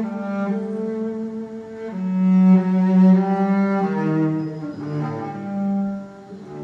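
Cello playing a slow melody of bowed, held notes that change every half second to a second and a half. The loudest is a long low note about two seconds in.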